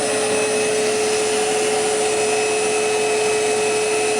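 Electrolux central vacuum power unit running steadily: an even rush of air with a constant motor whine, and a fainter higher tone joining about two seconds in.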